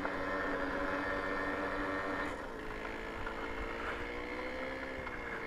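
Babetta 210 moped's single-cylinder two-stroke engine running steadily under load on a steep dirt-track climb, its note dropping a little about two and a half seconds in.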